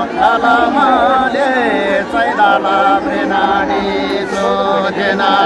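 Several voices singing a Nepali folk song together in long held notes, with crowd chatter underneath.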